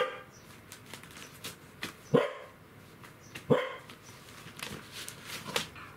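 A Pembroke Welsh corgi barking three times: single short barks spaced a second or two apart. A kitten scrabbling inside a paper tissue box makes faint crinkling between and after the barks.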